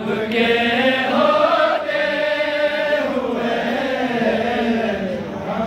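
A man chanting a naat unaccompanied, drawing out long held notes that bend slowly in pitch.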